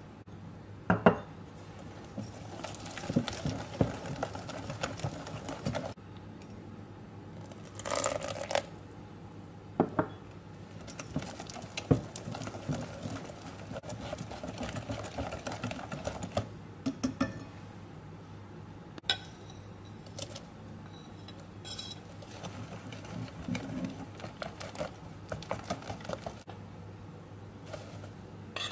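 A silicone whisk beating a runny egg, sugar and oil mixture in a ceramic bowl: stretches of quick wet swishing, with sharp taps and clicks of the whisk against the bowl, broken by short pauses.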